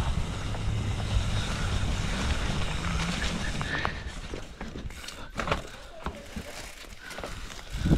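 Car engine running as the vehicle drives, a steady low hum that drops away about halfway through, followed by scattered knocks and rattles and a sharp thump near the end.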